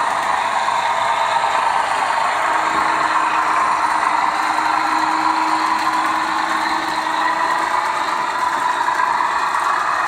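Model railway trains running on the layout: a steady rolling, mechanical noise of wheels and motors. A steady hum joins about two and a half seconds in and fades out near eight seconds.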